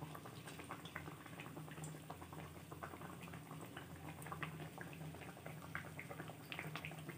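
Hot refined oil sizzling and crackling in a kadhai around a pua, a batter fritter deep-frying. The sound is faint: many small rapid crackles over a low steady hum.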